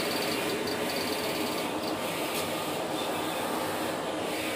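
UV flatbed printer running: a steady hiss with a low hum beneath it.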